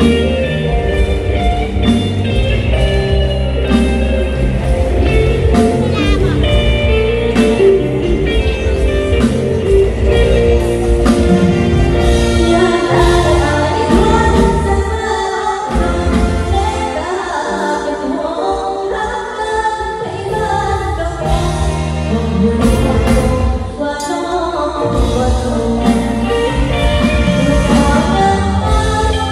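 A girl singing into a microphone over backing music, amplified through stage loudspeakers.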